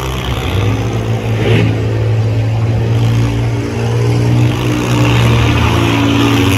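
Engines of demolition-derby minivans and cars running and revving: a steady low drone with the engine pitch rising and falling.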